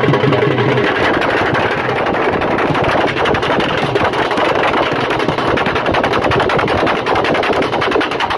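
Rope-tensioned barrel drums beaten fast with sticks in a dense, unbroken stream of strokes: the drumming that drives a Deewari stick dance.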